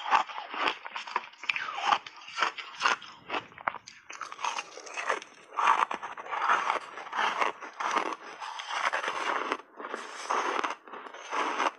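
Refrozen, reshaped ice dipped in passionfruit pulp being bitten and chewed close to a clip-on microphone: dense, irregular crunching, several crunches a second, with a couple of short pauses.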